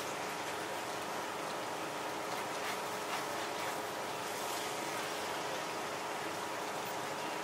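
Shredded-potato cakes and sausages sizzling steadily on a hot griddle tray, with a few light taps and scrapes of a metal spatula. A faint steady hum runs underneath.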